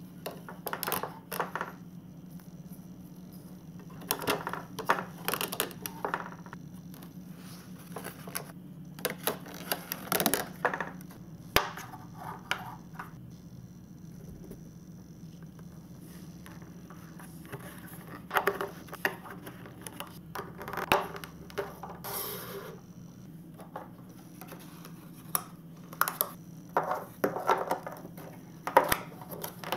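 Hard plastic marble-run pieces being handled and fitted together: bursts of clicks and clacks with short pauses between, over a faint steady low hum.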